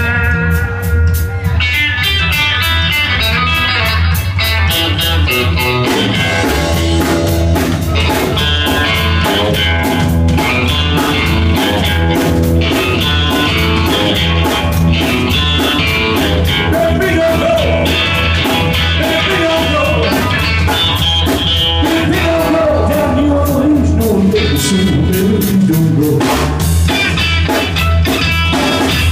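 A live trio playing blues-rock, with guitar and a drum kit keeping a steady beat.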